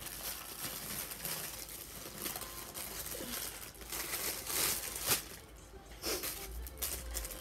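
Clear plastic packaging crinkling and rustling as it is handled, in irregular crackles with a few louder crackles around the middle.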